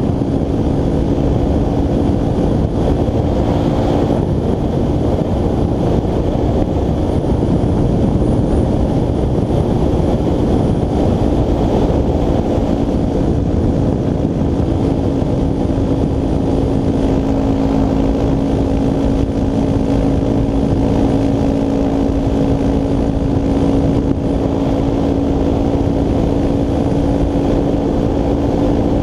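Motorcycle engine running at a steady cruising speed under heavy wind rush on the rider's helmet-mounted microphone. The engine note holds nearly constant throughout.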